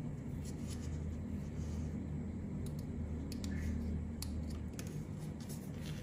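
Light clicks and rustling of thin hookup wires and a small plastic meter module and connector plug being handled, a few sharp ticks scattered through, over a steady low hum.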